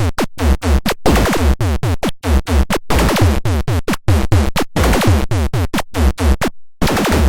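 A DIY electronic noise-maker kit blaring synth noise: rapid stuttering blips, each a falling pitch sweep over a deep thump, with a short break shortly before the end.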